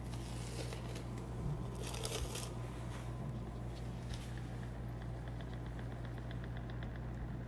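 Faint rustling and handling as an old jar is tipped over a glass jar covered in cling film, over a steady low electrical hum; a faint, even ticking runs through the second half.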